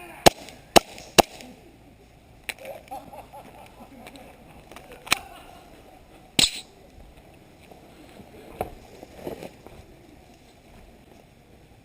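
Airsoft pistol shots, sharp cracks: three in quick succession in the first second and a half, then single shots spaced a second or two apart, with the loudest about six seconds in.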